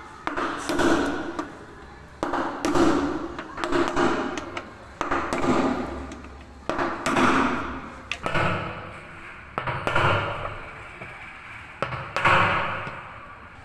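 Hammer blows on a washing machine drum's bearing, struck steadily about once every second or so, each blow ringing briefly in the metal.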